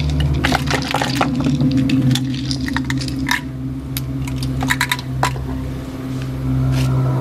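Small hard objects clicking and clinking as they are handled, in irregular clusters over a low steady drone.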